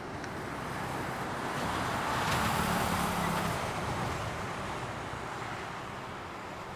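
A vehicle passing by: its noise swells over a couple of seconds, peaks near the middle, and fades away over a steady background rumble.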